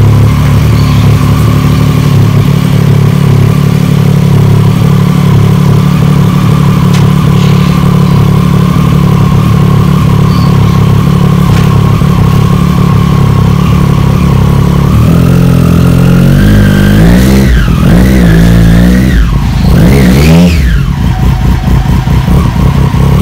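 Sport motorcycle engine idling steadily, then revved up and down about three times in the last third. Near the end the rear wheel spins on the paving.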